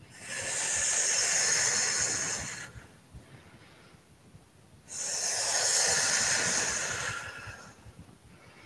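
A woman making the qigong healing sound for the lungs: a long hissing 'sss' breathed out slowly, like a balloon losing air. She makes it twice, each lasting about two and a half seconds, with a pause of about two seconds between.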